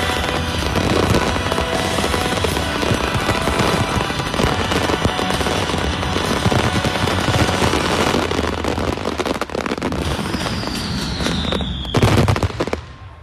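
Fireworks barrage at the finale of a pyromusical display: dense rapid bangs and crackling over the show's music. A falling whistle sounds near the end, then one last loud burst, and the noise cuts off sharply.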